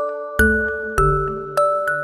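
Background music: a gentle, lullaby-like tune of bell-like struck notes about every 0.6 seconds, with deep low notes sounding under it near the middle.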